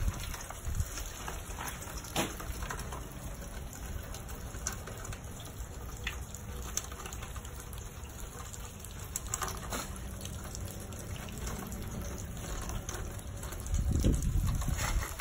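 Outdoor ambience of light pattering and scattered ticks, as from rain or dripping water after a hail storm, over a low rumble of wind on the microphone. The rumble swells louder near the end.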